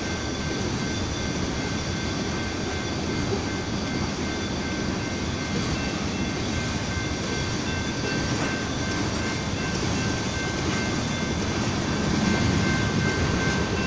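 Freight train of oil tank cars rolling steadily past: a continuous rumble of steel wheels on rail, with a thin steady high tone ringing above it.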